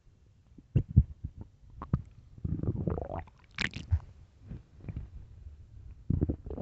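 Empty human stomach growling and gurgling from hunger: irregular low rumbles and pops, with a long rising gurgle about two and a half seconds in followed by a brief high squeak.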